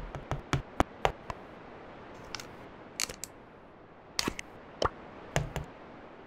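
Short sharp clicks and taps over a faint steady hiss: a quick run of about five in the first second and a half, then scattered single and paired clicks.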